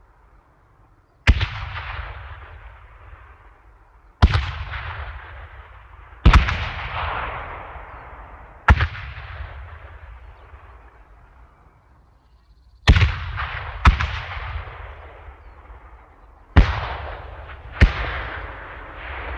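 A series of explosions: eight sharp blasts, irregularly spaced one to four seconds apart, each followed by a long rumbling, echoing tail that fades away.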